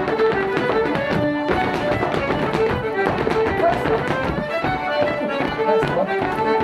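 Fiddle playing a brisk traditional dance tune, over the rapid clatter of rapper dancers' hard-soled shoes stepping on a wooden floor.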